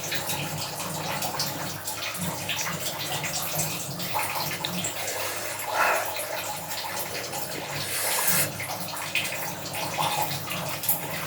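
Steady running, splashing water, with small scattered clicks and knocks over it.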